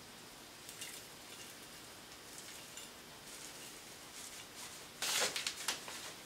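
Powdered charcoal carburizing mix poured from a cup into a square steel tube: a faint trickling patter, with a louder rush of grains about five seconds in.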